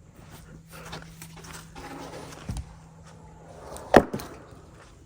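Freshly sawn poplar slabs knocking against wood as they are handled and stacked: a smaller knock about two and a half seconds in and one sharp, loud wooden clack about four seconds in.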